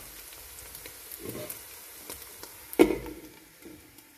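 Onions, green chillies and ginger-garlic frying in oil in a pan, a light crackling sizzle. A sharp clank about three seconds in as the glass lid is set down on the pan, after which the sizzle is quieter.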